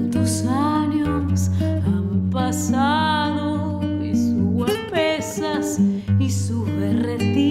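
A woman singing a tango, holding notes with vibrato, accompanied by a nylon-string classical guitar playing bass notes and plucked chords.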